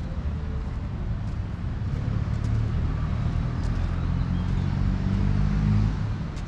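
Motor vehicle engine running close by, a low rumble that grows louder toward the end and then falls away as it passes.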